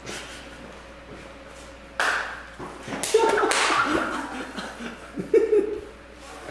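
A group of young men bursting into loud laughter about two seconds in, after a quiet start.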